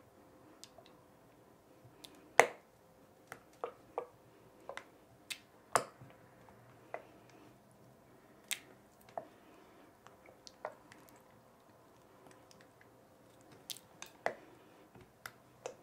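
Wooden stirrer mixing thick white glue and pink food colouring in a glass bowl: irregular sharp clicks and knocks as the stirrer strikes the glass, with soft sticky stirring sounds between them.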